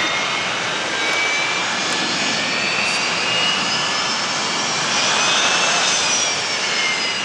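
Jet airliner engines running nearby, a steady rushing noise with a high whine that slides up in pitch and then back down near the end.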